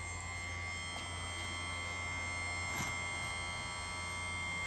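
Electric bench-mounted chain-saw grinder's motor running steadily, a constant hum with a thin whine over it, and one light click a little past the middle.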